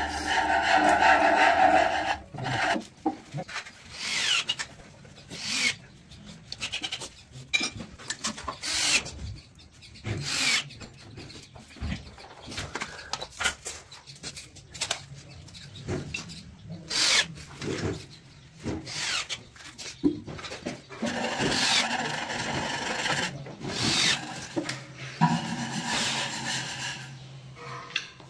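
Wood rubbing and scraping in irregular strokes of hand work on a wooden sliding cupboard, with a few sharp knocks between them.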